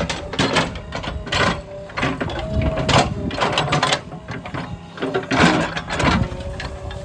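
Backhoe loader at work, with irregular metallic clanks and scrapes coming every half second or so.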